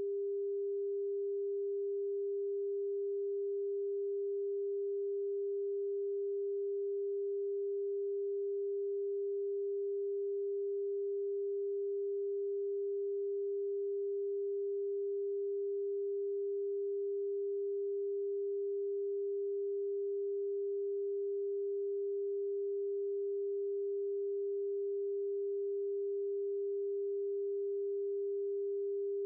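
A single pure electronic sine tone, mid-pitched, held perfectly steady in pitch and loudness with nothing else in the sound.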